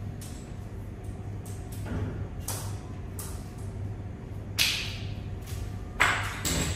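A few sharp clacks and knocks as a corded power drill is handled and then set down on a tile floor, the two loudest about halfway through and near the end. A steady low hum lies underneath. The drill's motor is not running.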